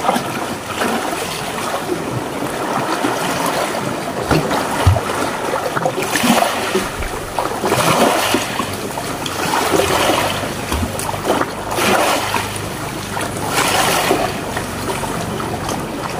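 Sea water sloshing and splashing, swelling in surges every couple of seconds.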